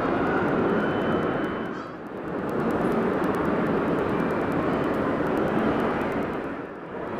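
Steady ambient roar of a crowded indoor shopping-mall atrium: many people's voices blended into a wash with no single voice standing out. It dips briefly about two seconds in and again near the end.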